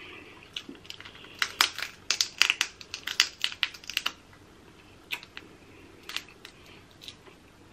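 Eating crab legs close to the microphone: a quick run of sharp cracks and clicks from shell and mouth for a couple of seconds, then a few scattered clicks.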